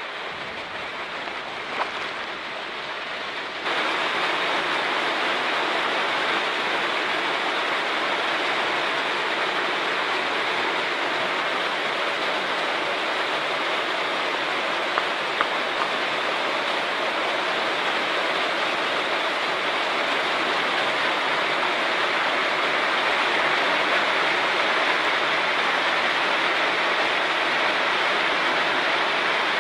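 Heavy rain pouring down steadily, turning abruptly louder about four seconds in.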